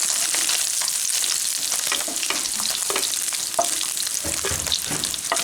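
Small puti fish sizzling in hot mustard oil in a pan, with a spatula scraping and clicking against the pan as the fried fish are lifted out.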